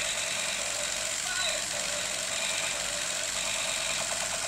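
Battery-operated toy laser gun playing its electronic sound effects through a small built-in speaker: a steady buzzing laser noise with warbling tones. About four seconds in it turns into a fast pulsing rattle, about ten pulses a second.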